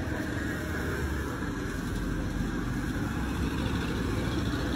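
Street traffic: a car driving past, heard as a steady low rumble of engine and tyres.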